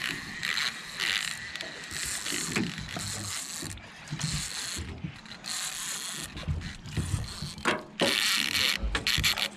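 Baitcasting reel being cranked hard against a hooked salmon, its gears and clicker ratcheting in irregular bursts.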